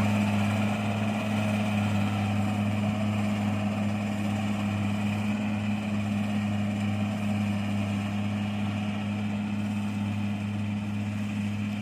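Kubota DC70 combine harvester's diesel engine running steadily under harvesting work, a deep even hum with machinery noise over it. It slowly gets a little fainter toward the end.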